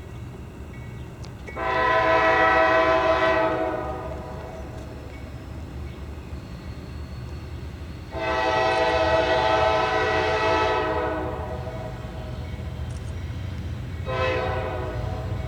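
Locomotive air horn sounding two long blasts and then a short one, the opening of the standard grade-crossing signal, over a steady low rumble of the passing train.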